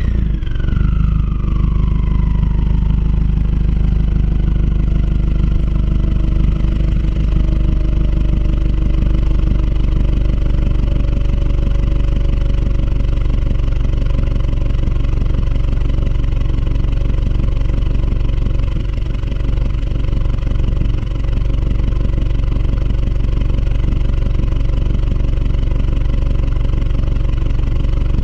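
Stage 2 Subaru WRX's turbocharged flat-four idling steadily through an Invidia downpipe and Tomei cat-back exhaust, heard close to the tailpipe. A whine falls in pitch over the first few seconds, then levels off.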